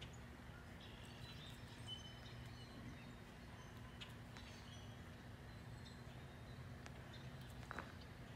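Faint outdoor ambience: small songbirds chirping now and then in the distance over a low steady hum, with one soft knock near the end.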